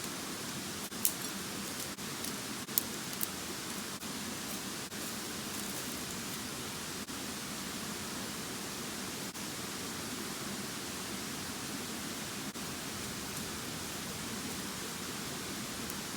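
Steady rushing of a mountain river. A few sharp clicks come in the first few seconds.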